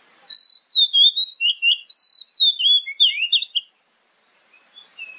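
Oriental magpie-robin singing: a loud, rapid run of varied whistled notes sliding up and down, breaking off abruptly about three and a half seconds in, then a few faint notes near the end.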